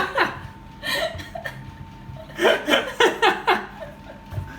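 People laughing in short breathy bursts, once about a second in and again in a longer run near the middle.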